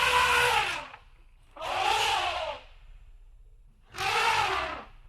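Elephant trumpeting three times, each call about a second long, rising then falling in pitch.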